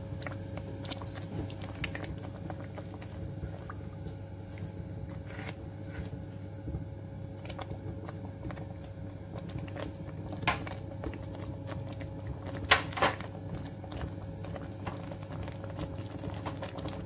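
Thick tomato ketchup simmering down in a kadhai: a steady scatter of small pops and clicks from bubbles bursting and the plastic spoon stirring against the pan, with a few louder clicks past the middle, over a steady low hum.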